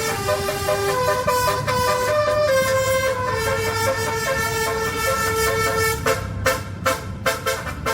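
Basuri 'telolet' multi-tone horn playing a melody in held, stepped notes, then breaking into a run of short, clipped toots about six seconds in.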